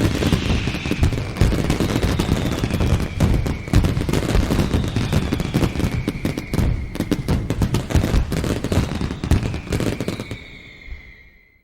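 A sound effect of rapid, dense bangs and crackles over a low rumble, like a burst of gunfire, with faint falling whistling tones; it fades out near the end.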